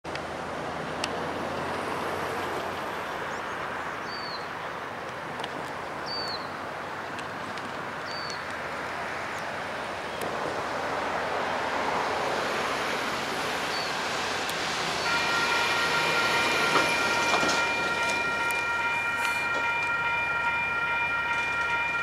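Two DXB-class diesel-electric locomotives working hard up a steep grade, a steady engine rumble that slowly grows louder as the train approaches. About two-thirds of the way in, a steady high chord of several tones sets in and holds.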